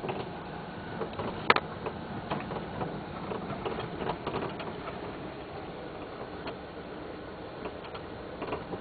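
Irregular clanking and rattling knocks from the left side of a Nissan AD over a steady background noise, the sharpest about a second and a half in. The knock began after a strut spring was replaced, and the owner suspects the steering rack.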